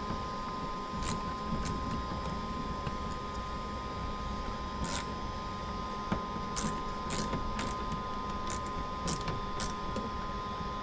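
Scattered light clicks and rattles of cables and terminal fittings being handled while battery leads are wired into a DC distribution busbar, over a steady background hum with a faint steady high tone.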